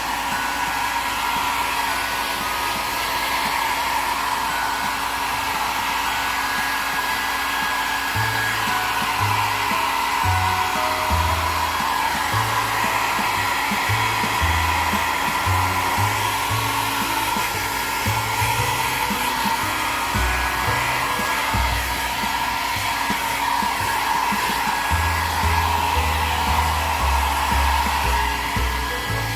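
Hand-held hair dryer running steadily, blowing to dry a pet's wet fur. A low rumble comes and goes under the steady blowing, most of all in the second half.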